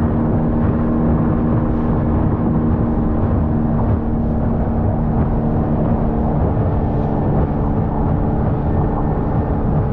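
Jon boat's outboard motor running steadily under way, its drone mixed with rushing wind and water noise.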